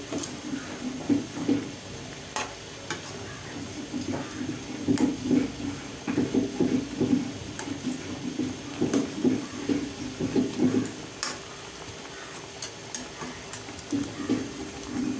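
Fried pointed gourd being stirred into a simmering curry in a pan: scraping stirring strokes in bouts with short pauses, with sharp clicks of the utensil against the pan and a light sizzle.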